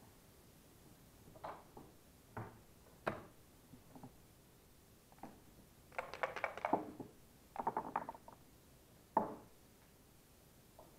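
Backgammon dice, leather dice cup and checkers knocking and clicking on a wooden board: a few single knocks, then two short bursts of rapid rattling clicks past the middle, and one last sharp knock.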